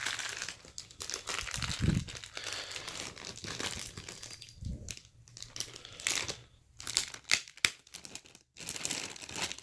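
Laptop packaging being handled: wrapping crinkling and rustling on and off, with a couple of dull low bumps.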